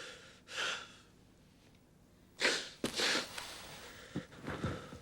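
A man starting to cry: a few sharp, noisy gasping breaths and sniffs, one about half a second in and two more around two and a half to three seconds in.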